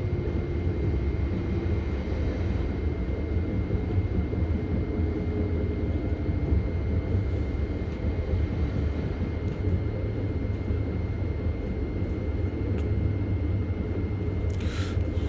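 Southeastern electric passenger train running at steady speed, heard on board: a constant low rumble of wheels on track with a thin steady whine above it. A brief higher-pitched sound comes near the end.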